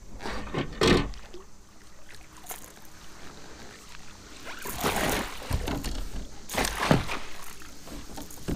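Water splashing as a hooked smallmouth bass thrashes beside a kayak and is scooped into a landing net, with a few louder splashes about a second in and around five and seven seconds.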